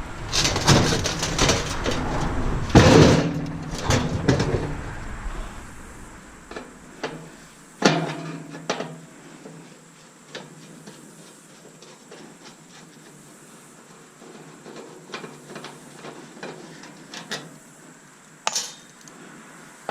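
Metal parts and hand tools clattering and knocking as a Bunn-O-Matic coffee maker is taken apart, busy for the first several seconds, then scattered single clicks and knocks.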